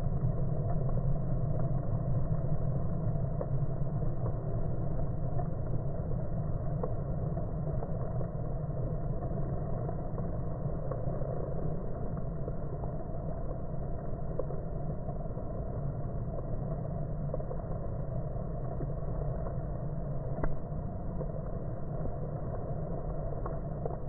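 Steady low drone of many honeybees flying at a hive entrance.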